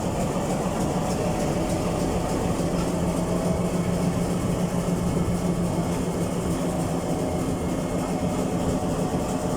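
Diesel locomotive engine running steadily at low revs, a constant low hum with a steady tone.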